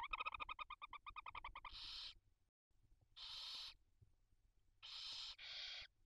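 Barn owls calling in the nest: a rapid twittering run of about a dozen notes a second, then short breathy hisses of about half a second each, repeated four times with gaps between — the hissing, snoring-type begging calls of barn owl chicks.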